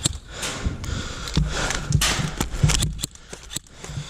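Scattered sharp clicks and knocks from a KWA LM4 gas blowback airsoft rifle being reloaded, with a few low thumps and stretches of rustling noise between them.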